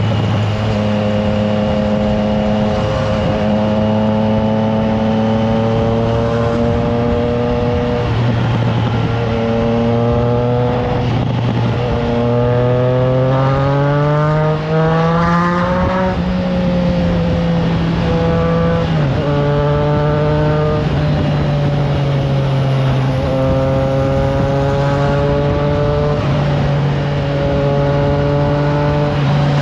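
Triumph Trident 660's inline three-cylinder engine through a FireTong exhaust, heard from the bike while riding. It holds a steady note, rises in pitch as it accelerates past the middle, drops sharply at a gear change about two-thirds of the way in, then settles into a steady, higher cruise.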